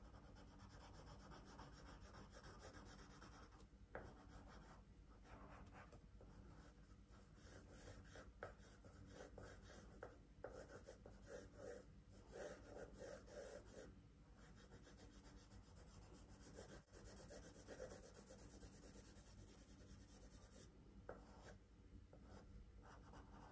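Faint scratching of a drawing tool on paper in short, repeated strokes.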